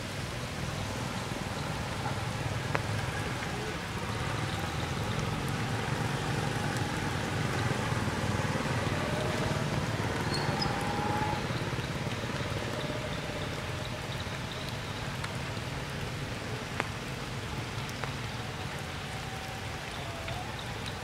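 Steady rain falling through the tree foliage, with scattered sharper drips.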